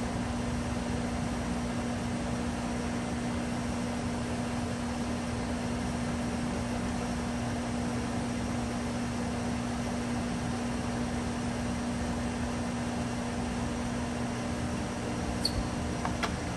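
Sharp 1640C engine lathe running with the spindle turning and the carriage under power feed: a steady mechanical hum with a constant low tone. Near the end, a couple of clicks as the apron feed lever is worked, and the tone stops.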